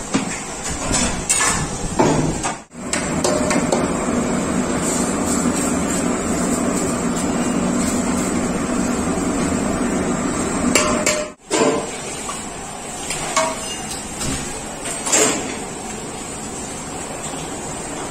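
Metal cookware being handled: steel pots and a steel bowl and ladle clanking and scraping against each other, with several sharp metallic knocks. Under them a steady rushing noise.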